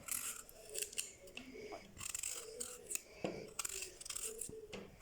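A raw turnip being trimmed and cut by hand: short, crisp cutting and scraping strokes at an irregular pace.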